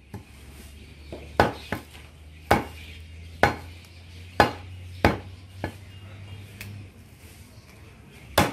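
Cleaver chopping goat leg meat on a wooden log chopping block: sharp chops about once a second for several strokes, a pause, then one more chop near the end.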